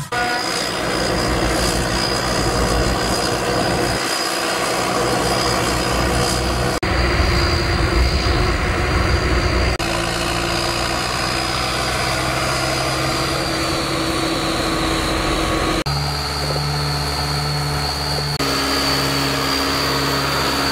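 Case IH tractor's diesel engine running steadily with a high whine over it, heard in several short clips spliced together, its pitch shifting at each cut.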